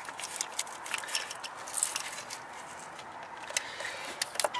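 Irregular small clicks and rustling from a hand working among the plastic wiring harness, wire loom and connectors around an ignition coil.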